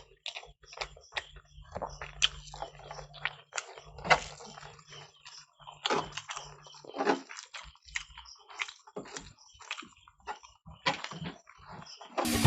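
Rice and curry being eaten by hand: an irregular run of short wet clicks and smacks from chewing and handling mouthfuls of food.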